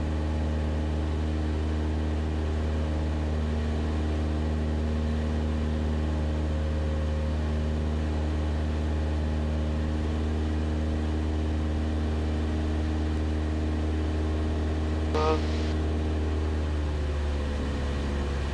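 Cessna 172 Skyhawk's piston engine and propeller droning steadily in cruise, heard from inside the cabin.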